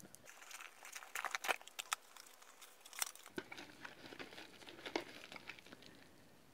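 Cardboard packaging insert being worked out of a box, then a small plastic bag handled: irregular rustles, scrapes and light knocks, with crinkling of the bag.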